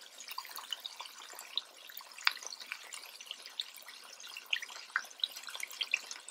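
Breaded wild hog steaks deep-frying in hot peanut oil in a cast iron Dutch oven. A soft fizz runs throughout with many small, irregular pops and crackles: the bubbling of moisture cooking out of the meat.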